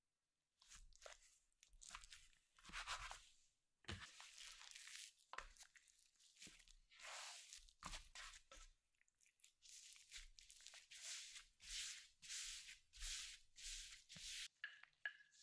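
Hands working soft stollen dough on a marble counter: a dough scraper cutting the sheet, then the piece folded, pressed and tucked into a ball. The sound is a quiet run of soft rubbing strokes about once a second, with a few light knocks.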